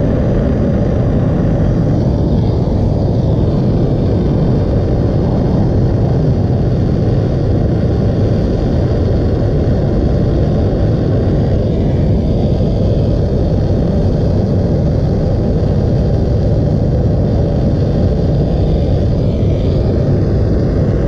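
Plumber's soldering torch flame running in a steady, unbroken roar while heating the new shut-off valve's copper joint.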